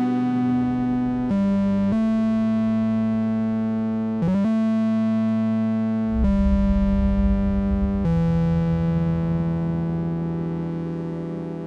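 Live electronic synthesizer music: sustained synth chords held and stepping to new notes every couple of seconds. A low bass tone joins about six seconds in, with no drums.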